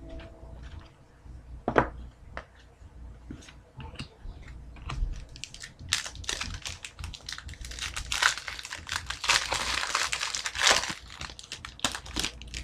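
Foil trading-card pack wrapper crinkling and crackling as it is handled and torn, dense for several seconds from about the middle onward. Before it, scattered light clicks of cards being handled and one sharp tap about two seconds in.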